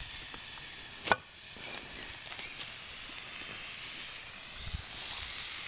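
Vegetables sizzling in a plough-disc pan (disco) over a wood fire: a steady frying hiss, with one short click about a second in.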